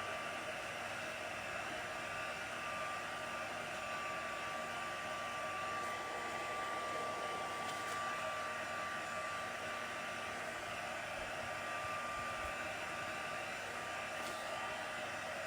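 Craft heat tool (embossing heat gun) blowing steadily with a thin steady whine, drying damp watercolour ink on card.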